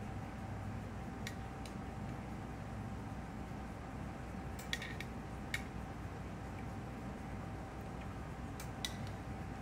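Metal tongs clinking against the rim of a stainless saucepan and a blender jar as garlic cloves are lifted across: scattered light clicks, a small cluster of them about halfway, over a steady background hum.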